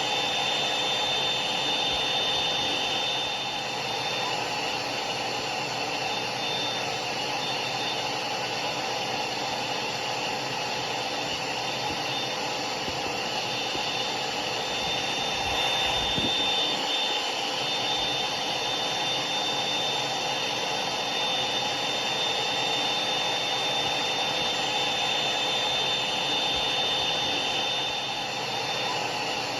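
Hair dryer running steadily: a constant rush of blown air with a thin, high, steady whine from its fan motor. A brief low thump comes about halfway through.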